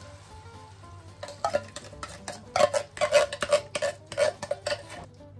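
A spoon scraping and knocking rapidly against the inside of a metal food tin, emptying out the last of the chopped tomatoes. The sound starts about a second in and stops shortly before the end.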